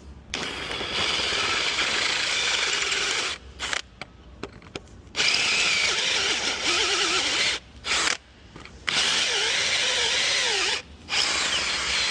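Power drill running in four bursts of about two to three seconds with short pauses between them, an 8.3 mm bit drilling out the remains of a broken bolt in a forklift tine to size the hole for a thread coil insert.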